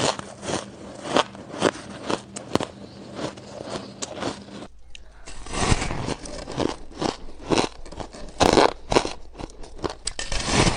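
Ice being bitten and chewed, a steady run of sharp, irregular crunches several a second, with a short lull about five seconds in.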